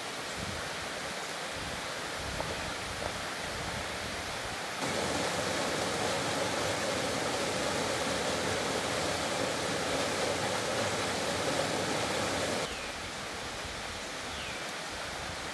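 Steady rush of a mountain creek. From about five seconds in until near the end it is louder, the white water of a small cascade tumbling over mossy boulders.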